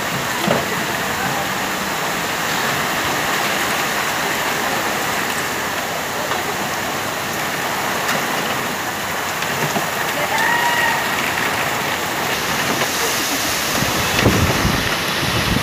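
Heavy rain pouring steadily onto a waterlogged street, a dense even hiss. A brief high tone sounds about ten seconds in, and a few low thumps come near the end.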